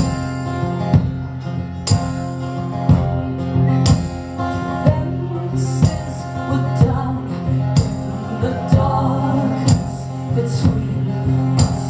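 A band playing a moody song live: guitars sounding steadily with a strong beat about once a second. A wordless vocal line wavers in over the last few seconds.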